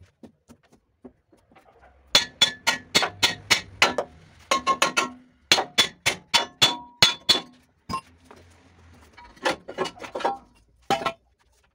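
Hammer striking the steel chassis frame of a 1961 Scania L75 truck: quick ringing metal-on-metal blows, about four a second, starting about two seconds in, pausing past the middle, with a few more near the end.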